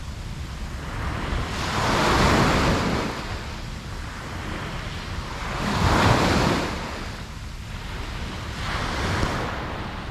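Ocean waves breaking on a beach, the surf swelling and falling back about every four seconds, with three waves breaking: the strongest near 2 s and 6 s, a weaker one near 9 s. Wind on the microphone runs underneath.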